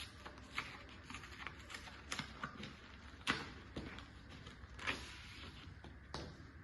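Packaging being opened and its contents handled: a run of small clicks, taps and rustles, with two louder knocks about three and five seconds in.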